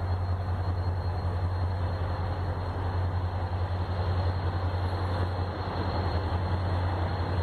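Diesel locomotive of an approaching passenger train rumbling steadily in the distance, a constant low drone that does not change.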